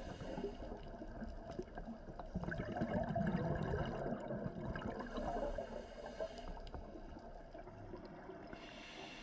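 Scuba regulator breathing heard underwater: the gurgling, rumbling bubbles of exhaled breath, rising and fading, with a brief hiss of inhaled air about five seconds in.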